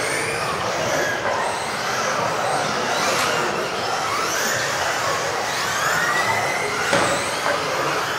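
Several electric RC off-road race cars running together, the high whines of their brushless modified-class motors rising and falling and overlapping as they accelerate and brake. There are a couple of sharp knocks, about three seconds in and near the end.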